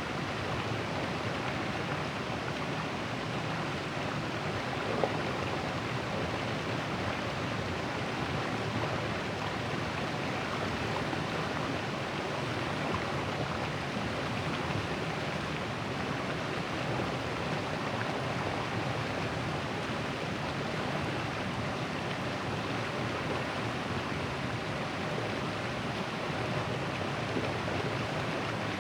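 River water rushing steadily over and around a large boulder. A single brief click comes about five seconds in.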